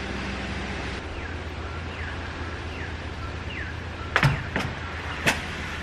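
Dishes on a tray set down on a table: three sharp clinks about four seconds in, the first the loudest, over a steady low hum. Before them a bird chirps a series of short falling notes.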